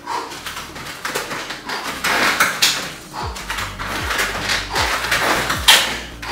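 Irregular hissing bursts of breath and movement from a person exercising hard on a mat. About three seconds in, a deep regular thump joins, coming roughly every 0.8 s.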